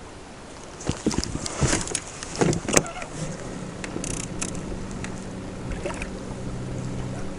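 Knocks and clatter in a small fishing boat, then from about three seconds in a steady low hum of a small electric motor moving the boat.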